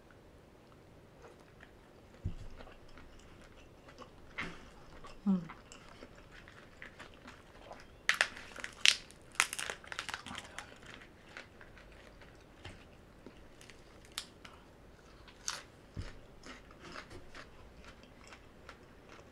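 A person chewing and crunching food close to the microphone, with wet mouth clicks and scattered crisp crackles; the loudest run of crunches comes about eight to ten seconds in.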